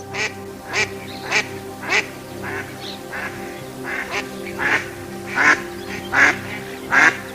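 Indian spot-billed duck quacking repeatedly, about one call every two-thirds of a second, louder toward the end, over steady background music.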